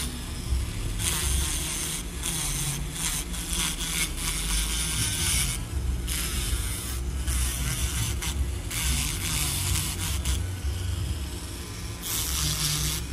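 Podiatry nail drill with a ceramic burr grinding a toenail. A steady motor hum runs under repeated hissing, scraping passes of about one to two seconds each as the burr is worked over the nail.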